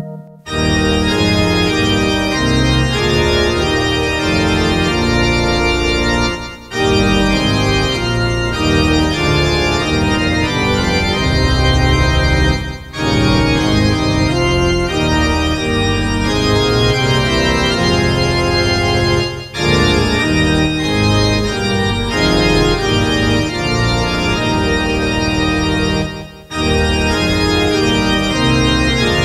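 Organ playing full sustained chords in phrases of about six seconds, each followed by a brief break, with a new phrase starting right after a short pause at the beginning.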